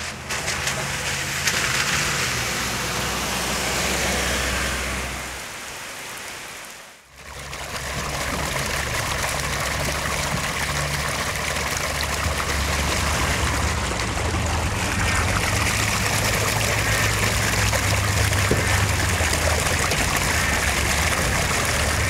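Steady rushing noise of moving water, with wind rumble underneath. It drops away briefly about six seconds in, then resumes.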